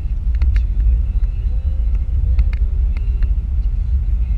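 Road noise inside a moving car's cabin: a steady low rumble of tyres and engine, with a few short light clicks.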